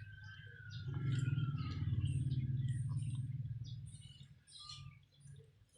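Birds chirping in many short, high calls, with a low rumble that swells up about a second in and fades away after about four seconds.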